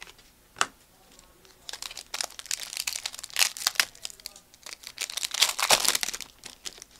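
Plastic foil wrapper of a Contenders basketball card pack being torn open and crinkled by hand: a dense crackling that builds to its loudest near the end, after a single click near the start.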